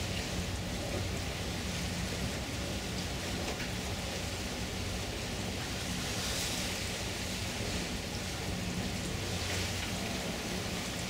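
Steady rush of wind and river water past a moving river cruise ship, with a low, steady engine hum underneath.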